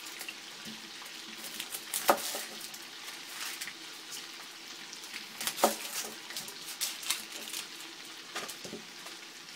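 Chef's knife cutting into a whole onion on a wooden cutting board: a few sharp knocks of the blade striking the board, about four over several seconds, with light crackling in between.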